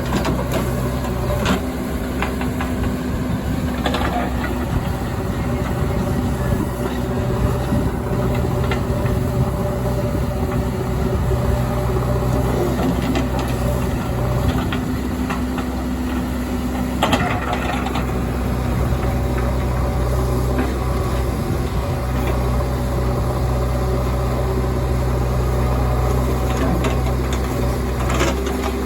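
Heavy diesel machinery running steadily, from a backhoe loader working beside a truck as it loads mud, with a few clanks and knocks every several seconds.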